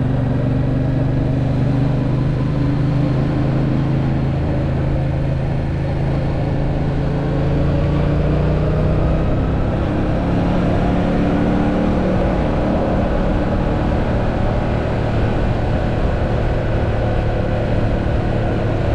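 Yamaha MT-07's 689 cc parallel-twin engine running while the motorcycle is ridden. The engine note eases briefly about six seconds in, then picks up again and climbs slowly.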